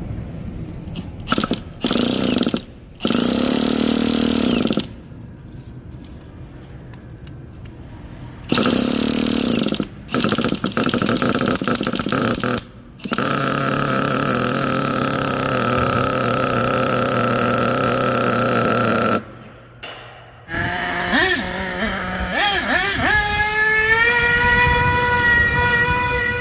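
Nitro engine of a Savage X 4.6 Big Block RC truck running and revving in repeated loud bursts with quieter idling between, then holding a steadier, rising note in the last few seconds. It needs minor carburettor adjustment.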